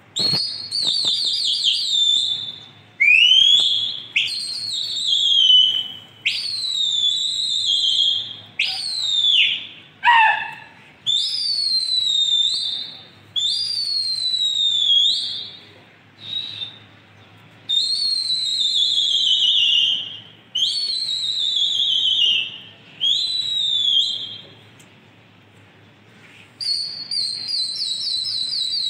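A person whistling loudly: about a dozen high whistles in a row, each a second or two long and mostly gliding down in pitch, some with a warble and one dropping steeply, the kind of whistling pigeon flyers use to keep their flock circling aloft.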